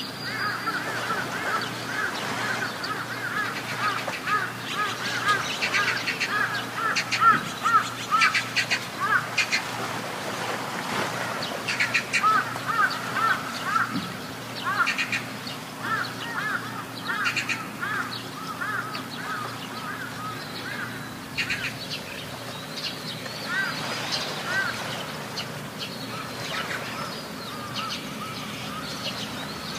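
Birds calling in long runs of short, rapidly repeated notes, over the steady low hum of a boat's motor.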